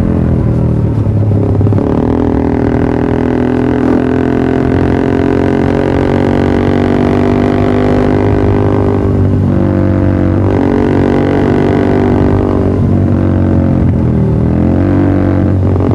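Yamaha R15 V3's single-cylinder engine running through an aftermarket Pro Liner TR1 exhaust. It holds a steady droning note at raised revs, which dips in pitch and recovers twice in the second half.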